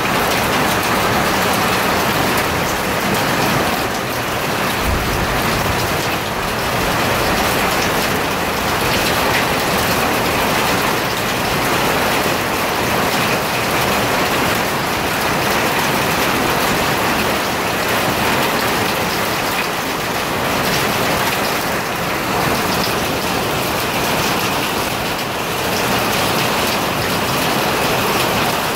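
Hail and rain hitting a carport roof, a loud, steady, dense noise of many small impacts.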